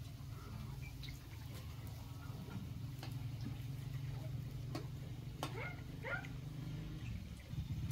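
Metal tongs clicking now and then against a wok of frying patties, over a low steady hum. A few short rising squeaks come about five to six seconds in.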